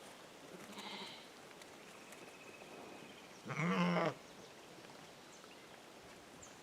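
A sheep bleating: a faint short call about a second in, then one loud, wavering bleat about three and a half seconds in.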